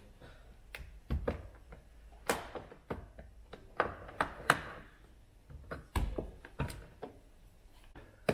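Plastic trim tool prying at a VW Golf MK7 front door card (door trim panel), giving an irregular run of sharp plastic clicks and snaps with a few duller knocks from the panel.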